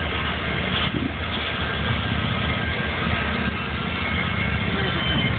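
Train close by, its engines and wheels rumbling steadily and loudly enough that a small child covers his ears, with a few faint steady high tones over the rumble.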